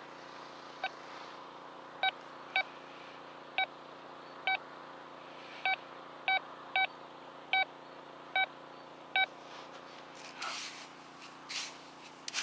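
Quest Q20 metal detector giving about a dozen short, same-pitched beeps at irregular intervals as its coil is swept over sand, signalling buried targets. Near the end a small digging tool scrapes into the sand a few times.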